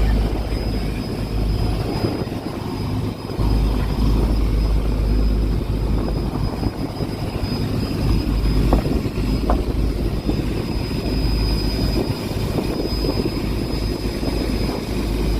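Fishing boat's engine running steadily, a continuous low drone with a thin high whine above it.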